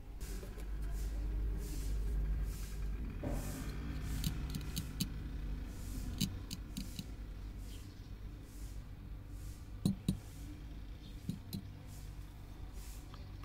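Small clicks and taps from a ruler and a marker being handled and set against a stiff wire, over a low steady rumble; the loudest tap comes about ten seconds in.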